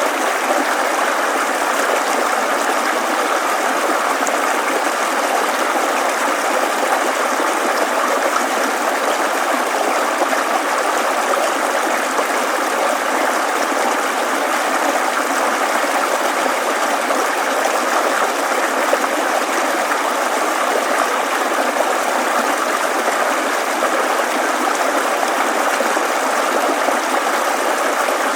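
Mountain stream babbling: a steady rush of flowing water.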